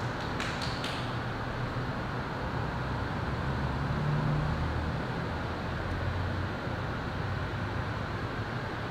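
Steady background hum and hiss, with a few faint clicks in the first second.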